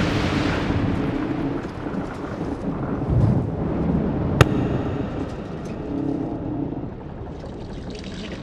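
Low rumbling ambient sound design, a wash of noise that thins out in the first second, with a faint low hum coming and going and a single sharp click about four and a half seconds in.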